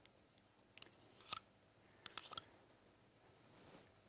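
A fork clinking lightly against a mixing bowl a handful of times, with quiet between, as berries and frozen yoghurt are mashed and mixed together.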